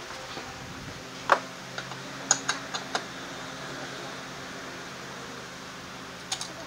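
Scattered sharp clicks and light knocks of tools and parts being handled: the loudest about a second in, a quick cluster around two to three seconds, and two more near the end. Under them runs the steady hum of an electric fan.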